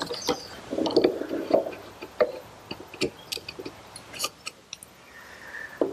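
Hand chisel pushed down by hand pressure into the corner of a hinge mortise in walnut, paring away the rounded corner: short crunching scrapes of wood fibres about a second in, then scattered small clicks and taps of the chisel and wood being handled.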